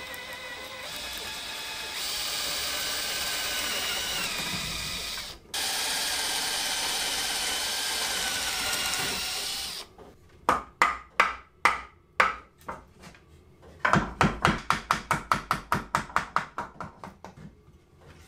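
Cordless drill boring out an old wooden dowel in a table leg joint, running steadily with a brief stop about halfway. Then a wooden mallet knocking on the leg and apron to drive the joint apart: about eight blows, a short pause, then a quick run of rapid blows.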